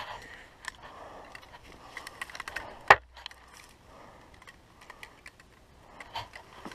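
Handling noise from a camera being moved and set on its stand: scattered clicks and rustles, with one sharp knock about three seconds in.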